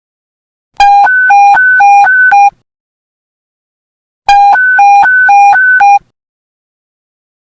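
Police radio panic-button alert tone: two loud bursts, each a rapid alternation between a low and a high electronic tone, a few seconds apart.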